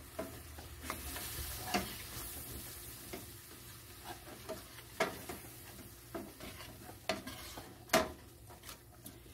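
Metal spoon stirring and scraping through milk poured into a butter-and-flour roux in a stainless steel pan, over a low sizzle: the start of a béchamel sauce. Scattered sharp clinks of the spoon against the pan, the loudest near the end.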